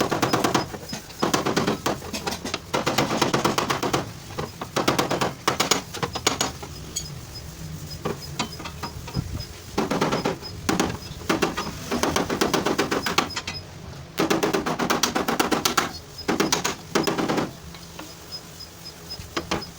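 Rapid hammering on a car's sheet-metal fender during panel beating: bursts of quick taps about a second long, broken by short pauses.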